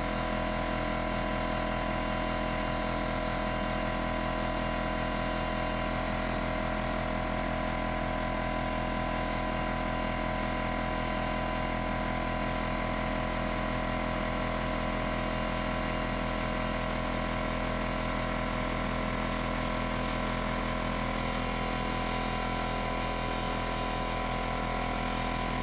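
Porter Cable 6-gallon pancake air compressor running steadily, its motor and pump filling the tank with air up to the pressure switch's cut-out near 150 psi.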